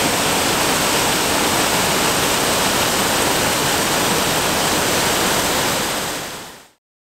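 Small mountain waterfall cascading down a rocky, mossy slope: a steady rush of falling water that fades out near the end.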